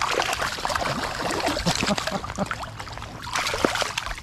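Water splashing as a hooked rainbow trout thrashes at the surface while being landed. A quick run of splashes starts suddenly, eases briefly, then picks up again before stopping.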